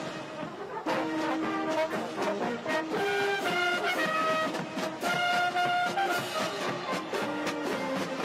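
Marching band playing a march: brass carrying the melody over a steady drum beat.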